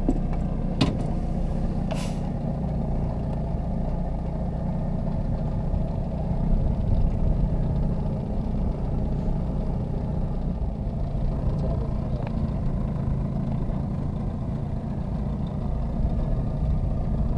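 Boat motor running steadily with a low rumble, with two sharp clicks about one and two seconds in.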